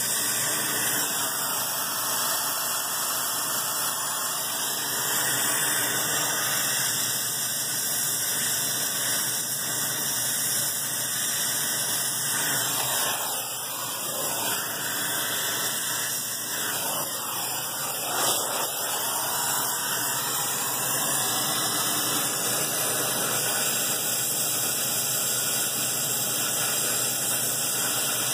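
A steady, loud hiss of gas from brazing a refrigeration filter-drier with a torch while a nitrogen purge flows through the copper lines. It dips slightly about halfway, and there is one short knock a little later.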